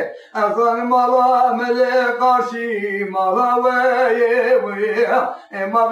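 A man singing a Kurdish dengbêj song unaccompanied, in long, wavering, ornamented held notes, with brief breaths near the start and about five seconds in.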